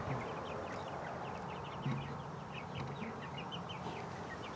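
Young chicks peeping quietly inside the coop: many short, high chirps coming irregularly.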